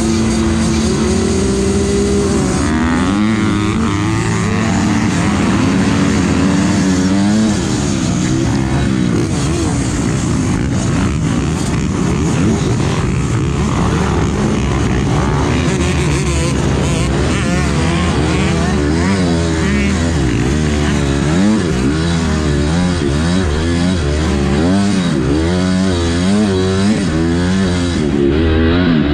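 A pack of motocross bikes, the nearest a Honda CRF250R four-stroke, held at steady revs on the starting gate, then revving hard about two and a half seconds in as the gate drops. The engines then run at full throttle, pitch sweeping up and down through gear changes as the pack races away.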